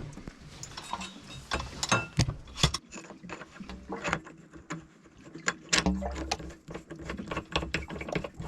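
Irregular sharp metal clicks, clinks and knocks of hand tools and steering-pedestal parts being handled and fitted, some with a brief ring, as the brake and shift mechanism is reassembled.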